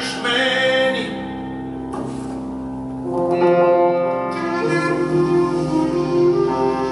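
A small band playing live music, with piano and percussion. The music drops to a quieter passage about a second in and swells again at about three seconds.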